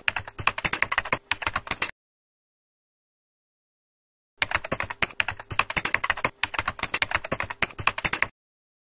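Rapid computer keyboard typing, a fast run of key clicks. It comes in two runs: the first stops about two seconds in, and the second starts about halfway and lasts about four seconds.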